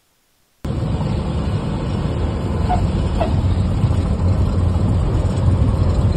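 Cessna 182's engine and propeller heard from inside the cabin, a steady low rumble with wind noise during the landing over the runway, cutting in suddenly about half a second in.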